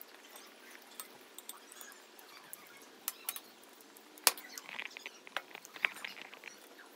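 Metal spoon clinking against a ceramic cereal bowl and the bowl being handled, a few sharp knocks among small clicks, the loudest knock about four seconds in.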